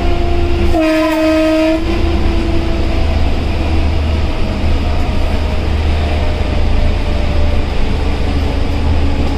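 Inside the cab of a WAP-5 electric locomotive running on the line: a steady heavy rumble with a faint steady whine, and a horn blast of about a second, about a second in.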